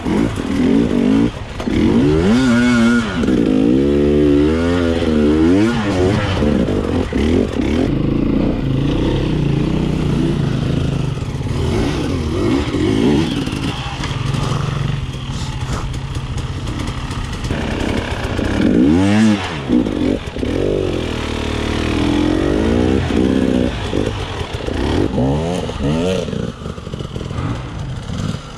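Enduro dirt bike engines, among them a KTM 300 EXC two-stroke, revving up and down in repeated bursts of throttle on a steep climb. The hardest revving comes a few seconds in and again about two-thirds of the way through.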